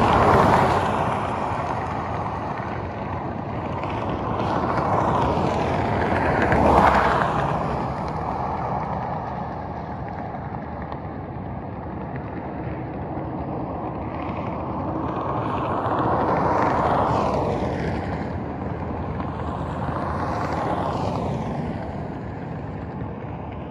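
Road traffic: vehicles passing by one after another, their tyre and engine noise swelling up and fading about four times over a steady background rush.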